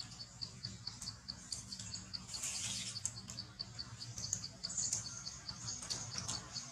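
Insects chirping steadily in the grass: a regular train of short, high chirps about four or five times a second, with a few brief higher hisses now and then.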